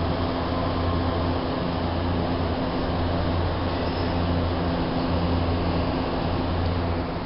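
A machine running with a steady low hum. Its deep drone swells and eases every second or two.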